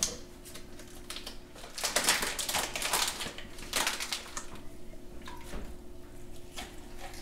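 Plastic packaging crinkling and rustling in bursts as a whole raw chicken is unwrapped by hand and lifted out, busiest about two to four seconds in. A faint steady hum runs underneath.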